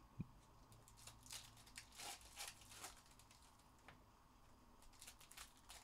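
Near silence with faint, scattered soft rustles and ticks of trading cards and pack wrappers being handled.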